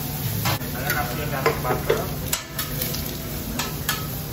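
Food sizzling on a hibachi steel flat-top griddle while metal spatulas scrape and tap across the hot plate, turning diced chicken, with several sharp metal-on-metal clicks.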